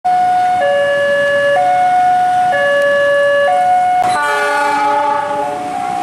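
Railway level-crossing warning siren sounding a two-tone hi-lo signal, switching pitch about once a second. About four seconds in it changes abruptly to a denser sound of several steady tones together.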